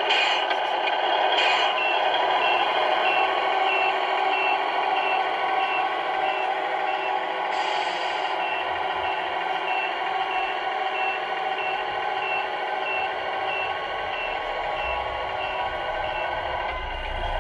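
Tamiya Scania R470 RC truck's electronic sound unit playing a simulated diesel engine running, with a steady run of reversing beeps while the truck backs up. The beeps start about two seconds in and stop near the end; about three short hisses come through early on.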